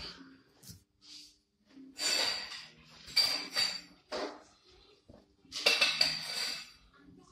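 Metal tools clanking and scraping against a jaw puller on a car's rear wheel hub, in four short bursts with a metallic ring.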